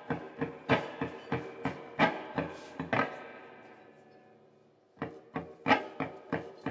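Electric guitar strummed in short, choppy chords, about three strokes a second. The last chord rings out and fades nearly to silence about three seconds in, then the strumming starts again about five seconds in.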